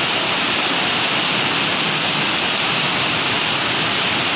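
Fast muddy floodwater rushing steadily through a stone temple doorway, a continuous churning wash of water around people's legs.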